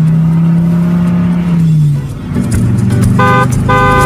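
Cartoon car-engine sound effect, a steady pitched hum that sags in pitch and stops about two seconds in, over children's background music. Near the end come two bright held tones, a short one and then a longer one.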